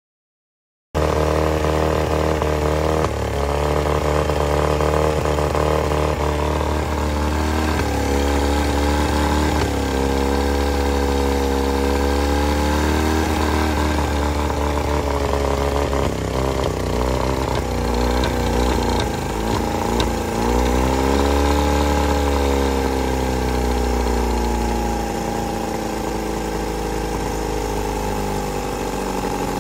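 1972 Evinrude 40 HP Norseman outboard, a two-cylinder two-stroke, running with its cowl off. Its speed rises and falls several times and then settles to a lower, steadier speed near the end as it is being tuned.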